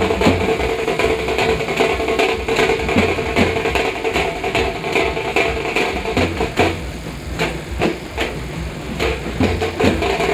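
Percussion-driven procession music: drums beating a fast, loud rhythm with low thumps, over a steady pitched tone held underneath.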